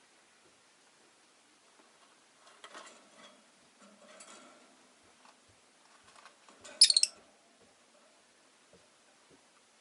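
Rosy-faced lovebird making a few soft bouts of sound, then one brief, loud, high-pitched chirp about seven seconds in.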